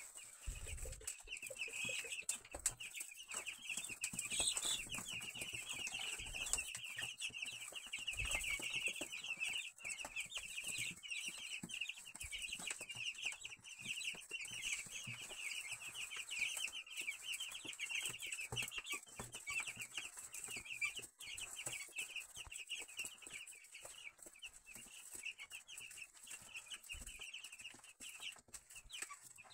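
A brood of young chicks peeping nonstop, many high cheeps overlapping into a steady chatter.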